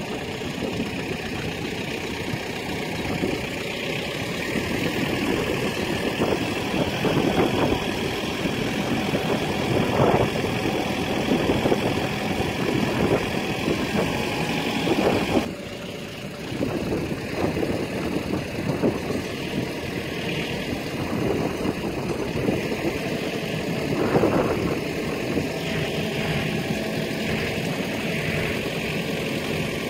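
Tractor diesel engine running steadily, powering the hydraulics that raise a tipper trailer's body. Its sound drops briefly about halfway through, then carries on.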